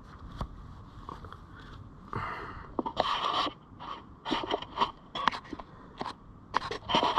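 Kayak paddle working the water in irregular strokes: short splashes and drips, with sharp knocks and scrapes against the plastic hull, more frequent from about two seconds in.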